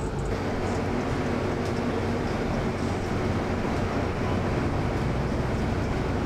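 Steady engine drone and road rumble from inside a moving bus, an even, unchanging level with a low hum underneath.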